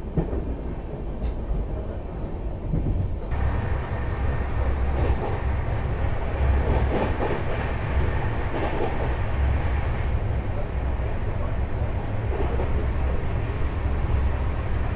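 Train running noise heard from inside the lower deck of a double-decker coach: a steady rumble of wheels on the track. About three seconds in it turns suddenly louder and fuller, as another train runs past alongside.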